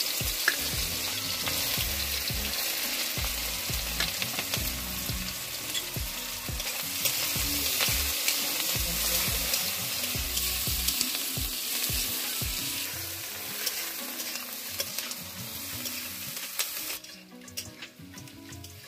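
Sliced onions sizzling in hot oil in a steel kadai, stirred with a metal spatula that scrapes and clicks against the pan. The sizzle falls much quieter near the end.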